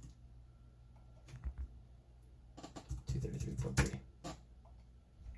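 A few scattered computer keyboard and mouse clicks, then a man's voice reading out a number.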